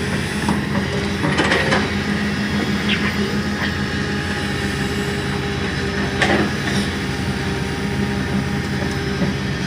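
Komatsu PC200 excavator's diesel engine running steadily, with a few short metallic knocks and scrapes, once about a second and a half in and again about six seconds in, as the machine moves soil.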